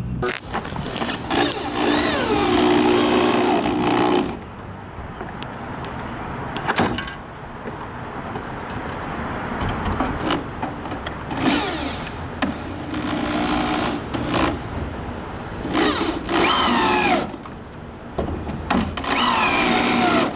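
Corded electric drill running in several bursts of a few seconds, its pitch rising as it speeds up and falling as it slows, as it bores into a wooden board.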